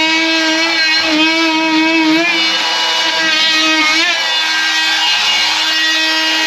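Oscillating multi-tool running at a steady high-pitched buzz while cutting a channel in drywall. Its pitch sags briefly three times as the blade bites.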